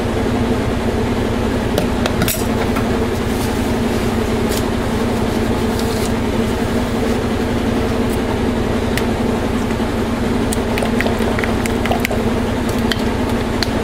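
High-efficiency top-load washing machine (agitator type) running a long spin cycle: a loud, steady hum. Over it come a few light clicks and taps of plastic pitchers and utensils being handled.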